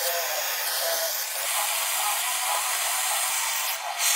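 Hose-fed soldering torch burning with a steady hiss as it heats a copper pipe joint for soldering, dipping briefly near the end.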